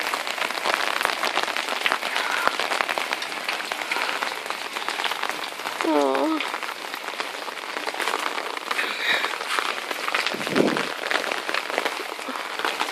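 Steady, dense patter of water drops falling on hard surfaces and hail-covered ground just after a hailstorm. A short falling voice-like sound comes about six seconds in, and a brief low thud a little past ten seconds.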